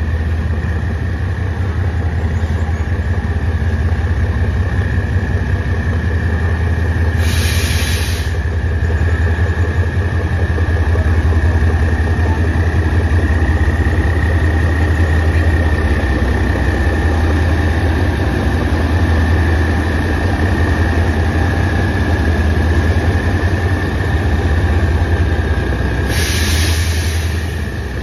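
Diesel-electric locomotive passing slowly at close range, its engine a deep steady drone with a steady high whine above it. Two short bursts of hiss come about seven seconds in and again near the end.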